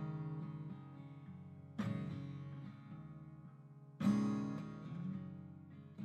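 Background music: an acoustic guitar strumming chords, a new chord about every two seconds, each left to ring out and fade.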